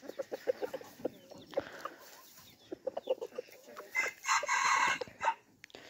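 Chickens clucking in quick, short low notes around a pecking, scratching red junglefowl rooster. A short rooster crow comes about four seconds in.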